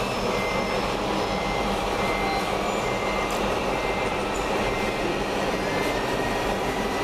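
Steady mechanical din of radio-controlled scale construction models at work, a model excavator and model trucks, with short high beeps now and then like a reversing alarm.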